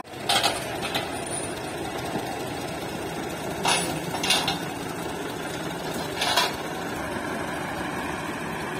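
Diesel tractor engines, a Massey Ferguson 385 and a Fiat 640, running steadily at low revs. Four brief sharp noises come over them: one about half a second in, two close together around four seconds, and one just past six seconds.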